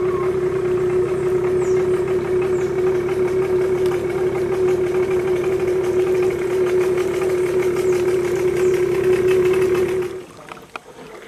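Small boat's outboard motor running at a steady speed, then cut off suddenly about ten seconds in, leaving only faint water sounds.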